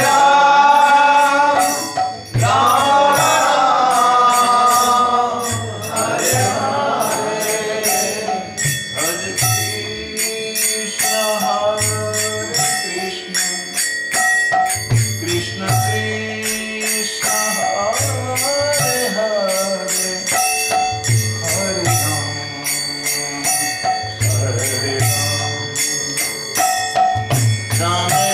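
Kirtan: a man singing a Hindu devotional chant in long melodic phrases while playing a mridanga (double-headed barrel drum) in a steady rhythm of deep strokes, with a bright metallic jingle of small hand cymbals keeping time. The singing is strongest in the first few seconds.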